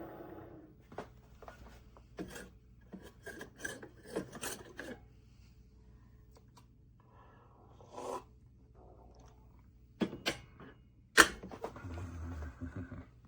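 Handling noises: a scatter of clicks, taps and rubbing, with one sharp loud click about eleven seconds in. A steady whirring fades out within the first second.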